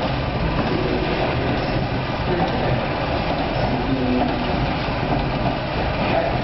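Drum-type black sesame roasting machine running, its rotating drum and drive motor making a steady mechanical noise.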